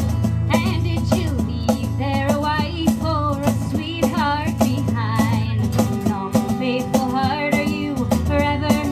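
Acoustic guitar strumming over a steady low drone, with a sung melody coming in about half a second in.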